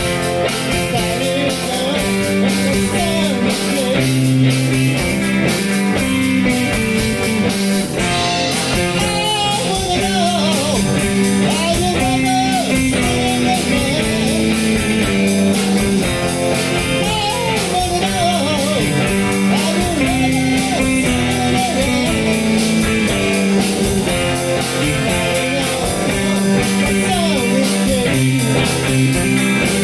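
Rock song with guitar. A voice comes in singing about eight seconds in, with a steady high ticking beat from then on.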